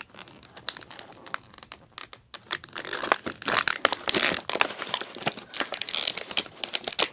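Clear plastic blister packaging of a Shopkins pack crinkling and crackling as it is handled, the crackling growing louder and busier about two seconds in.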